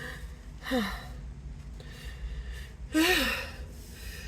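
Two breathy, voiced gasps falling in pitch, a short faint one just under a second in and a louder one about three seconds in: the catching breaths of a sneeze building up.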